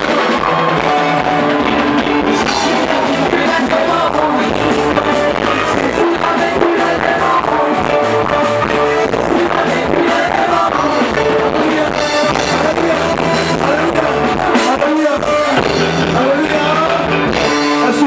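Live band music with some singing, playing without a break.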